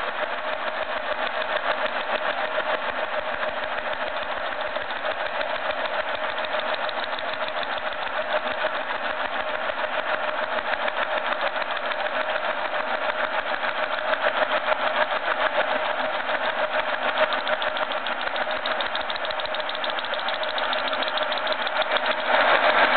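Boring head on a 6T10 milling machine cutting a hardened steel bore with a homemade cutter carrying an exchangeable Sandvik insert: a steady, fast, harsh rattle that gets louder about a second before the end. The ugly sound comes from the material being very hard.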